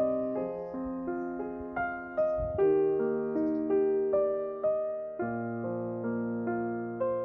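Slow, gentle solo piano music: single sustained notes struck about every half second, each fading away.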